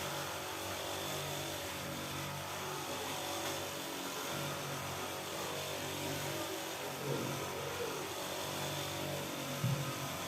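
A steady mechanical hum, like a motor running.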